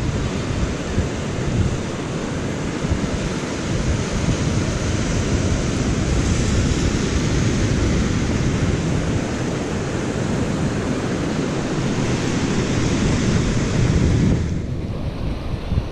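Wind buffeting the microphone over the rush of surf, a steady noise heavy in the low end that drops away sharply near the end.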